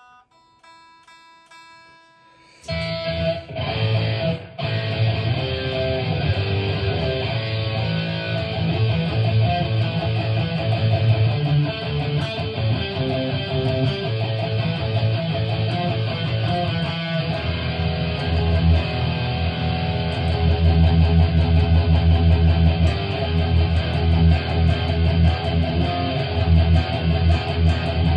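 Harley Benton Fusion-T electric guitar with EMG pickups, played through a Line 6 HX Stomp modeler. A soft ringing chord fades, then about two and a half seconds in the playing turns suddenly much louder into dense rhythm playing that keeps going.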